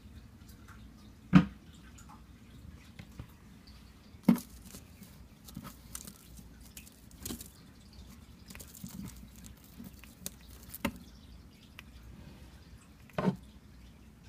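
Five short, sharp taps a few seconds apart, with softer ticks between them, over a faint low hum.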